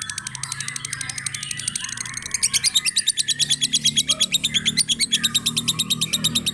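Lovebird in ngekek: a long, unbroken run of sharp, rapid chattering notes, about ten a second, the continuous song prized in contest lovebirds. The song grows noticeably louder a little over two seconds in.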